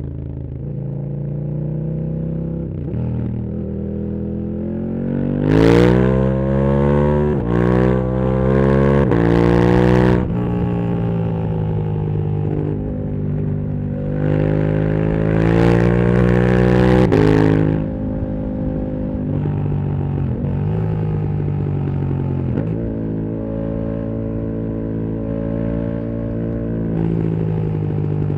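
2016 KTM 1290 Super Duke R's V-twin through a full titanium Akrapovic exhaust. It accelerates hard twice, each time climbing in pitch and dropping in quick steps at the upshifts, and between and after these pulls it runs at steady part throttle.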